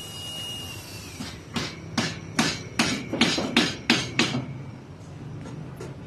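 A hammer striking repeatedly on a construction site: about nine sharp, ringing blows at a steady rate of roughly three a second, starting about a second in and stopping a little past the middle.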